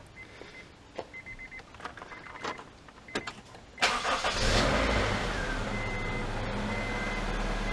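Short runs of high beeping and small clicks, then the 2000 Honda CR-V's 2.0-litre four-cylinder engine starts about four seconds in, flares briefly and settles into a steady idle. It is the first good start after a head gasket and timing belt job, running smoothly.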